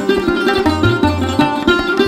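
Instrumental music: a melody of quick plucked string notes over a steady, repeating bass beat.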